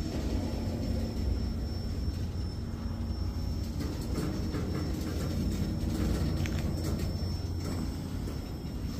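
Freight train cars rolling slowly past, slowing toward a stop: a steady low rumble of wheels on rail with scattered light clicks.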